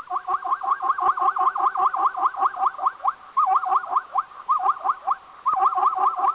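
Zebra calling in a rapid series of short, high yelping barks, each rising in pitch, about five a second, in runs broken by brief pauses.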